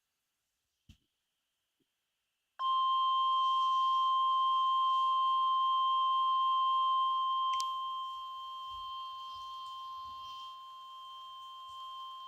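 Emergency alert attention tone of NOAA Weather Radio: a single steady electronic tone, the 1050 Hz warning alarm announcing a new weather warning. It starts about two and a half seconds in, sounds for about ten seconds, and gets quieter in steps from about halfway.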